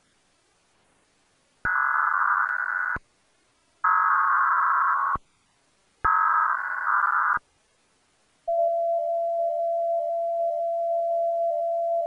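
Emergency Alert System test audio: three bursts of SAME digital header data, each a little over a second long with short silent gaps, then a single steady attention tone that starts about eight and a half seconds in. The whole is run through a novelty audio effect.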